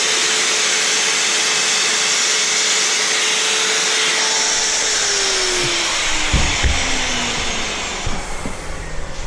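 An electric motor-driven machine running with a loud, steady airy hiss and a steady hum. About five seconds in it is switched off: the hum falls in pitch as it winds down, and a few low knocks follow.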